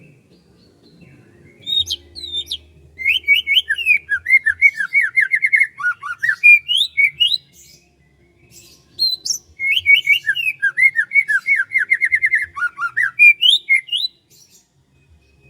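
A songbird singing two loud phrases a few seconds apart, each a rapid run of repeated falling notes.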